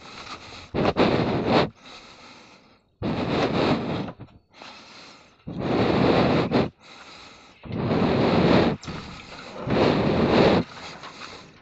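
Rumbling, rushing noise right on the phone's microphone, coming in bursts of about a second roughly every one and a half to two seconds.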